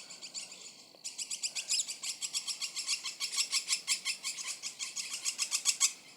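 A bird's rapid, high-pitched chirping call: a fainter trill, then from about a second in an even run of sharp chirps at about eight a second that stops near the end.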